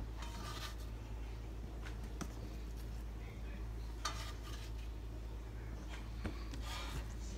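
Faint kitchen handling noises: a few brief scrapes and clinks of dishes or utensils over a steady low hum.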